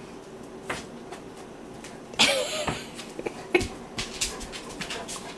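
Two dogs tussling on a dog bed: one loud, short, harsh vocal outburst from a dog a little over two seconds in, then scattered light clicks and taps of paws and movement.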